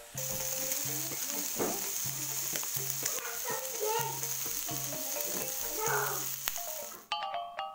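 Marinated chicken satay skewers sizzling on a hot ridged grill pan, a steady dense hiss that cuts off abruptly about seven seconds in.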